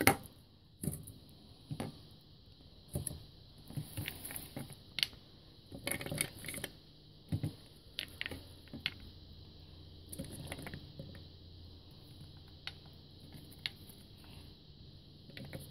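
Scattered light knocks, clicks and rustles of food being handled and packed into a Magic Bullet blender cup, over a faint steady low hum.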